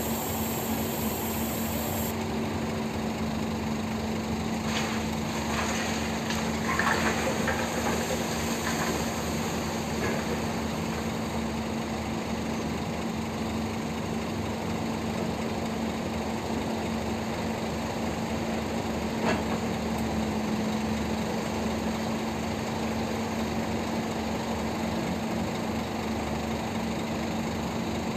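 Diesel engines of a hydraulic excavator and dump trucks running steadily with a constant low hum, with a few knocks and clatters between about five and nine seconds in and another near twenty seconds.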